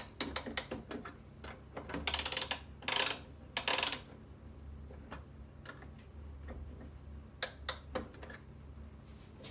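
A 1920s German oak pendulum wall clock being wound with its key: the movement clicks in three short bursts of rapid clicking as the key turns, with a few single clicks before and after.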